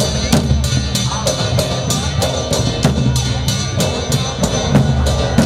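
Drum music for a Ger (Gair) folk dance: a deep, loud drum beat with sharp, evenly spaced clacks about three times a second.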